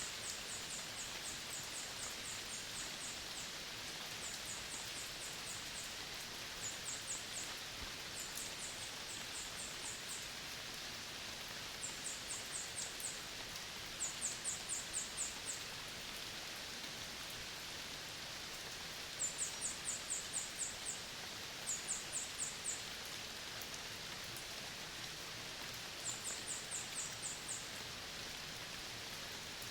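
Very high-pitched pulsed calls from a tropical dry forest animal, in short trains of about six to eight quick pulses. The trains repeat every few seconds over a steady hiss of forest ambience.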